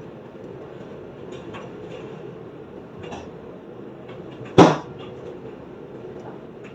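Steady light rain with scattered faint drip ticks, broken once about four and a half seconds in by a single sharp, loud knock.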